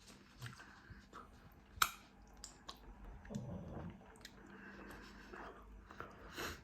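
Someone chewing food close to the microphone, with soft wet mouth clicks and a sharper click about two seconds in.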